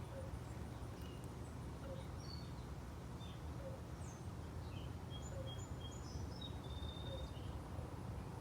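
Faint birds chirping: short scattered notes, with a brief run of calls about five seconds in, over a steady low background rumble.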